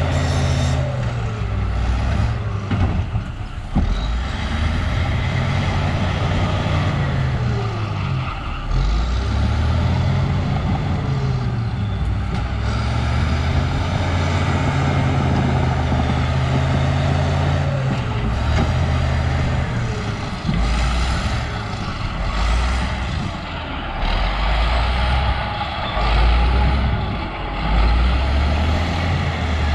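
Cat D6H bulldozer's diesel engine working steadily, its pitch dipping and rising again several times as it loads and unloads.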